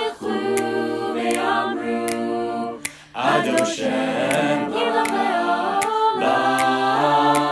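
Mixed-voice chamber choir singing a cappella in Hebrew, held chords in several-part harmony, with a short break between phrases about three seconds in. A light, regular tick keeps time underneath.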